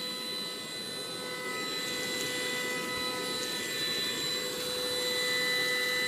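Cordless vacuum cleaner running steadily on a rug, a constant high motor whine over the rush of air through it.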